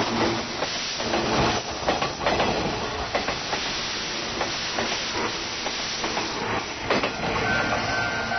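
A 185 series electric train running past at a level crossing: steady rolling noise with quick clicks of the wheels over rail joints. Near the end, as the train noise drops, the crossing's warning bell comes through, ringing in quick even pulses.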